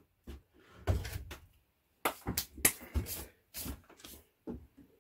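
A string of irregular knocks and clunks from handling in a workshop, a few each second, then stopping just before the end.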